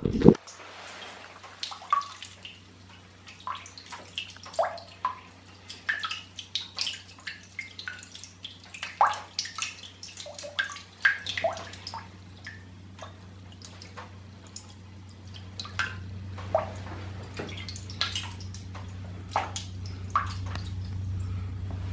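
Water from a handheld spray head splashing and dripping into a porcelain urinal bowl, in irregular plinks and splashes. A steady low hum runs underneath and grows louder in the second half.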